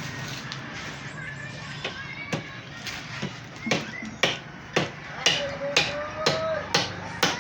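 Hammer blows in a steady series, about two a second, starting about two seconds in and getting louder toward the end.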